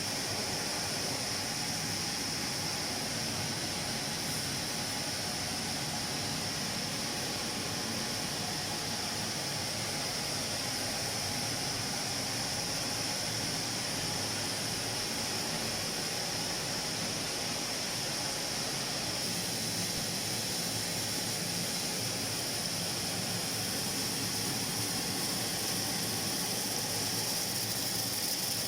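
Microwave drying and roasting machine running: a steady mechanical whir and hiss with a faint constant tone.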